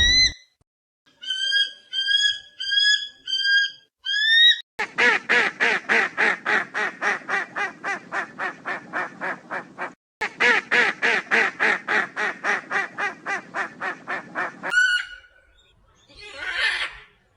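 Waterfowl calling: a run of rapid, harsh quacking or honking calls at about four a second, with one brief pause partway through. It is preceded by about six short, high calls and followed near the end by a short, noisier call.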